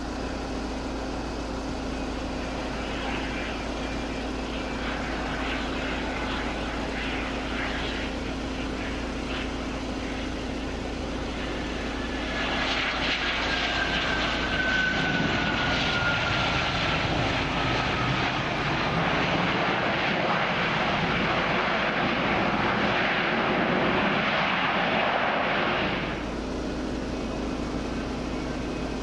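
Twin-engine business jet's engines: a steady distant hum, then about twelve seconds in a louder jet rush with a whine that falls in pitch as the jet rolls along the runway after landing. It stops abruptly near the end.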